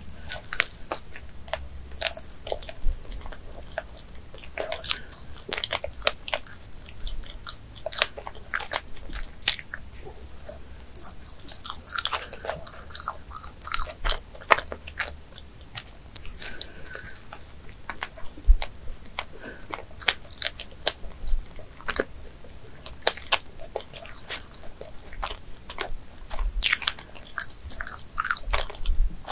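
Close-miked eating of a soft glazed doughnut topped with whipped cream and fresh strawberry pieces. There is a bite at the start, then steady chewing with many irregular wet mouth clicks.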